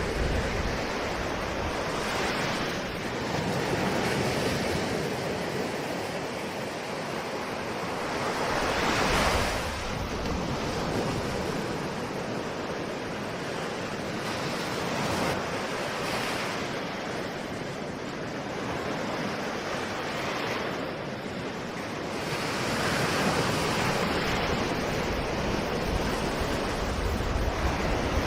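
Ocean waves washing on a shore, a continuous rush that swells and ebbs every several seconds, with the loudest surge about nine seconds in.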